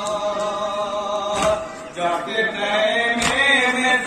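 A man chanting a noha, a Shia lament, through a microphone in long, sliding held lines, with a short break about halfway. A sharp slap of hands striking chests in unison (matam) comes about once every one and three-quarter seconds.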